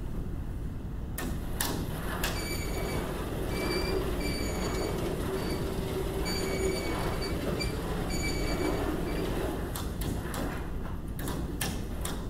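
Vertically sliding chalkboard panels being moved up and down. They run with a rumble and an intermittent high squeal, with sharp knocks as the boards are grabbed at the start and stopped near the end.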